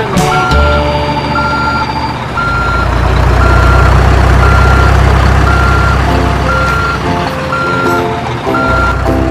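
Truck reversing alarm beeping steadily at one pitch, about once a second, over a low truck-engine rumble that swells about two seconds in and drops away near the end. Light music plays underneath.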